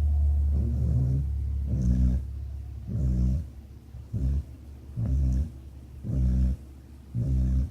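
Snoring: one long low snore over about the first two seconds, then short low snores about once a second.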